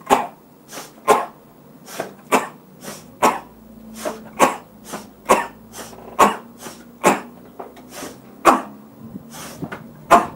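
Forceful Ibuki breathing from a karateka: short, explosive inhalations and exhalations with the abdomen and muscles tensed, each a sharp hissing rush of air. About two breaths a second, alternating louder and softer.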